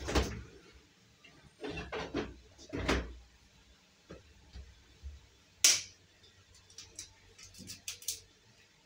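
Household knocks and clatters, the loudest a single sharp click a little before six seconds in, followed by a quick run of light taps near the end as an egg is cracked over a pot.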